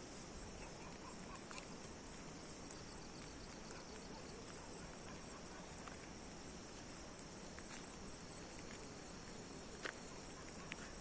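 Steady high-pitched chorus of crickets, with a few faint clicks and one sharper click near the end.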